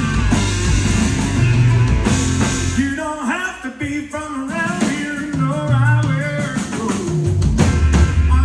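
Country-rock band playing live, with drum kit, bass and electric guitar, and a male lead vocal singing over it from about three seconds in.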